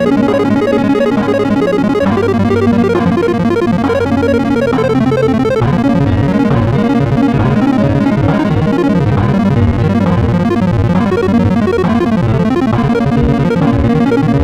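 Electric guitar (Kramer Focus VT-211S) played through distortion, delay and reverb pedals: a dense, steady wash of sustained notes and echoing repeats, the lower notes growing busier about six seconds in.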